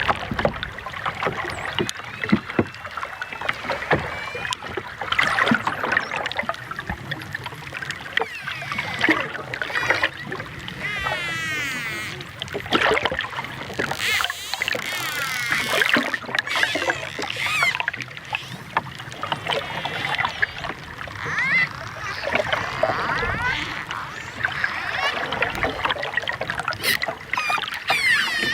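Dolphins whistling and clicking: many overlapping whistles that rise and fall, mixed with sharp clicks, and a fast warbling whistle about halfway through.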